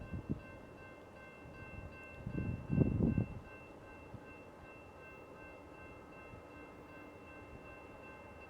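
Railroad grade-crossing bell ringing steadily as a train approaches, a metallic tone of several high pitches. A short burst of low noise comes about two to three seconds in.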